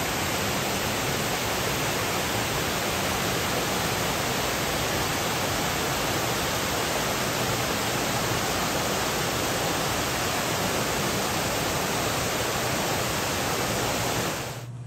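Water rushing steadily over a rocky cascade and weir, an even roar of white water that fades out near the end.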